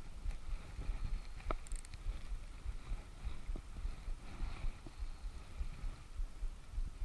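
Low, uneven rumbling of wind buffeting the microphone, with a single faint click about a second and a half in.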